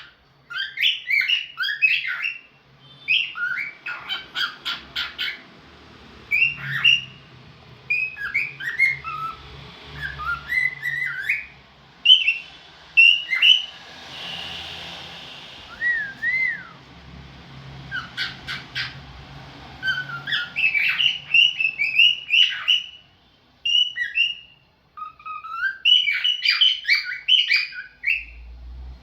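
Cockatiel calling in a long, varied run of chirps and squawks, with short pauses, one up-and-down whistled note partway through, and a few quick rattling series of clicks.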